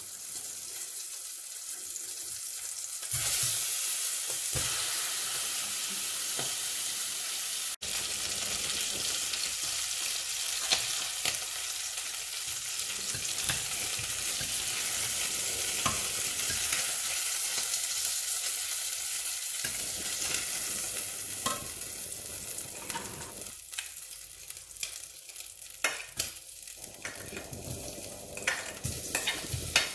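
Cooking oil sizzling in a pan as ingredients are sautéed and stirred. The sizzle grows louder about three seconds in, and there are scattered sharp taps of the utensil against the pan, most of them near the end.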